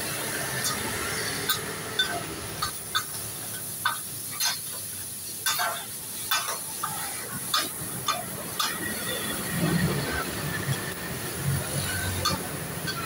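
Metal spatulas clacking and scraping on a teppanyaki flat-top griddle as food is chopped and turned, over a steady sizzle. The sharp clacks come irregularly and thin out in the last few seconds.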